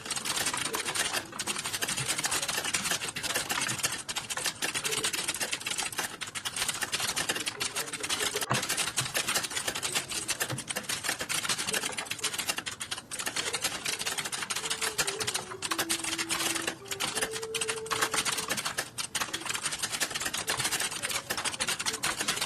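Fast, continuous typing on a computer keyboard: a dense, unbroken stream of key clicks.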